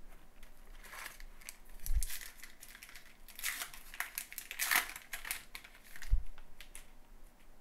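Trading card pack wrapper being torn open and crinkled by hand, in irregular crackly bursts as the cards are pulled out. Two dull thumps from handling fall about 2 and 6 seconds in.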